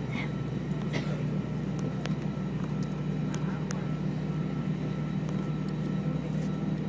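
Steady low drone inside an Airbus A320 cabin on the ground before engine start, with a faint steady high whine and a few light clicks.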